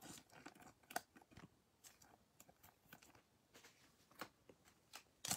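Near silence with a few faint, scattered clicks and ticks of trading cards being handled and set down on a breaking mat.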